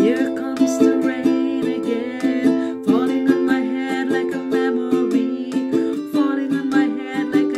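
A woman singing to her own strummed ukulele, the strums coming in a steady rhythm under the sung melody.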